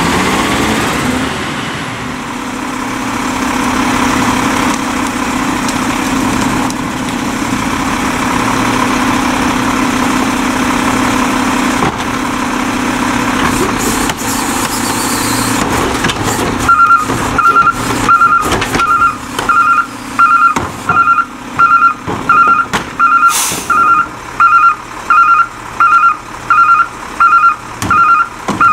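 E-Z Pack rear-loader garbage truck's diesel engine running with a steady drone. About 17 seconds in, its reverse alarm starts beeping, about three beeps every two seconds, and a short hiss of air cuts in near the middle of the beeping.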